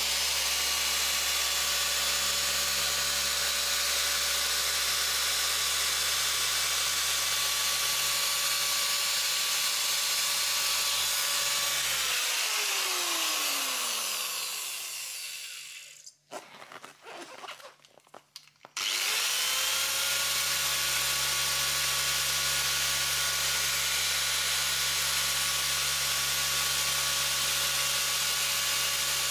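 Rotary polisher compounding car paint, running at a steady speed with a constant whine. About twelve seconds in it is switched off and its pitch slides down as it spins to a stop. After a few faint knocks it starts again near the middle and quickly runs back up to the same steady speed.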